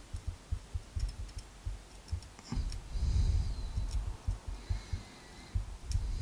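Small clicks and light knocks of tweezers and metal parts as springs are pulled out of the pin chambers of an American Lock series 1105 padlock, with low handling bumps that are loudest about three seconds in.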